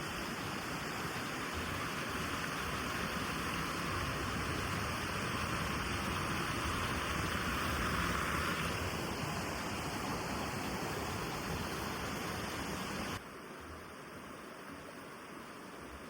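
Mountain stream water rushing steadily. About 13 seconds in it drops suddenly to a quieter rush.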